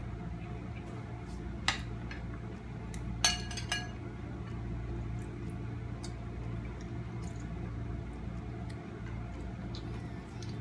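Spoons and clam shells clinking against ceramic bowls: a sharp clink about two seconds in, two ringing clinks close together about three and a half seconds in, and a few faint taps, over a steady low hum.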